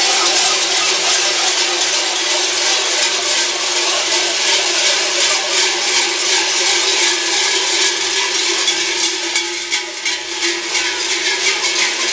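Many large cowbells (chocas) slung at the belts of cigarrón carnival costumes, clanging together continuously as the costumed figures run past in a dense metallic jangle. In the last few seconds the clanks come more separately and sharply.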